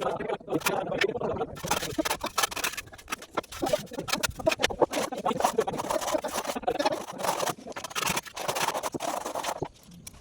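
Hand tools scraping and tapping irregularly in construction work, a dense run of scratches and small knocks that eases briefly near the end.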